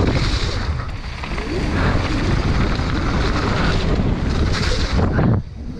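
Wind buffeting the microphone over the rumble and rattle of a downhill mountain bike running fast over a wet, rough dirt trail, with tyre hiss on the mud; the noise dips briefly near the end.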